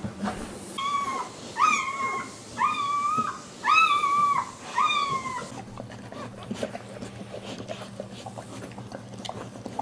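Newborn American Staffordshire Terrier puppy crying: five short, high squealing cries about a second apart, each bending up and then falling in pitch. They are followed by quieter rustling and clicks.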